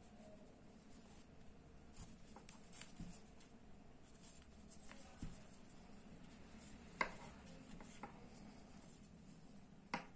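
Faint rustling and scratching of cotton crochet yarn as a fine needle is worked through the stitches and the yarn is pulled through to finish off an end, with a couple of small clicks, one about seven seconds in and one near the end.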